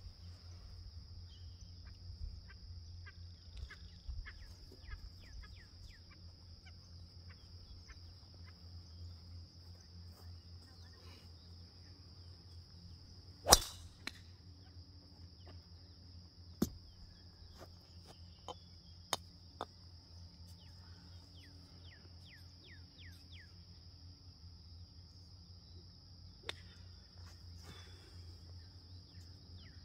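A driver strikes a teed golf ball with one sharp crack about halfway through, the loudest sound here. Several fainter clicks follow from other golfers hitting balls. A steady high insect buzz and short bird chirps run underneath.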